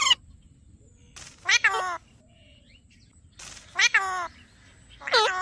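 A bird calling loudly, a two-part call repeated three times about every two seconds, each call bending in pitch.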